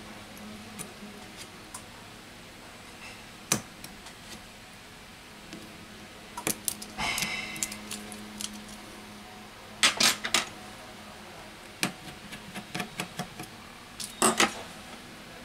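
Scattered small clicks and taps of metal tweezers against a smartphone's internals, with small parts set down on a silicone repair mat. A short clatter with a brief scrape comes about seven seconds in, two sharp clicks near ten seconds, and a run of light ticks toward the end.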